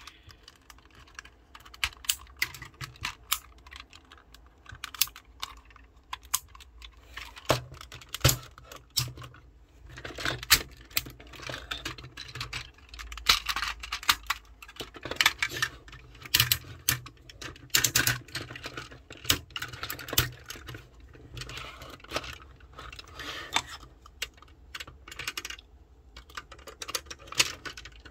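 Plastic Tobot transforming car-robot toy being transformed by hand: irregular clicks, snaps and rattles of plastic parts folding and locking into place.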